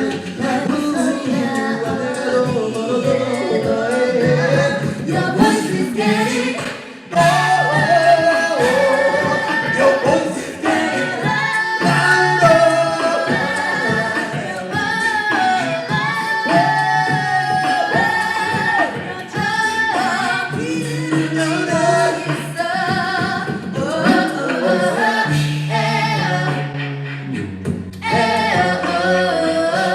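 An a cappella vocal group singing in several-part harmony, with a bass voice carrying low held notes beneath the upper parts. The sound dips briefly about seven seconds in, then comes back fuller.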